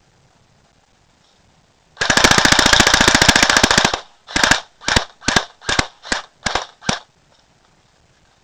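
Pulse R76 AK-style airsoft gun firing on full auto: one continuous burst of about two seconds of rapid clicking shots, then seven short bursts in quick succession.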